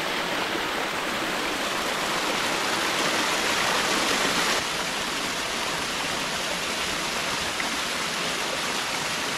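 Small forest waterfall and its stream running: a steady rush of water, a little louder for a few seconds before the middle.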